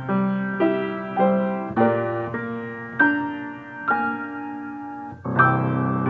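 Solo piano playing a slow, gentle melody of single notes that ring out and fade, with a fuller, louder chord struck about five seconds in.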